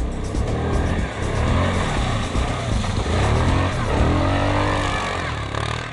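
Quad bike (ATV) engine revving up and falling back several times as it is driven through mud and snow.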